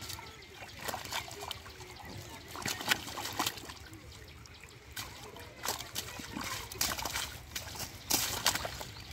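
Irregular splashing and slapping in shallow muddy water as a large catfish thrashes while being held by hand, with the sharpest splashes about three seconds in and again near the end.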